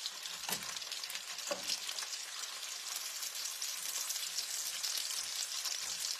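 Bacon strips sizzling in a frying pan, with fine crackling pops of spattering fat. A couple of soft knocks, about half a second and a second and a half in, are the tongs against the pan as the strips are turned.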